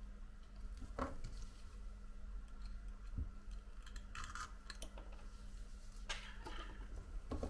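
Faint, scattered clicks and short scrapes of a thin prying blade and small tools working along the edge of an iPhone XS screen, over a steady low electrical hum.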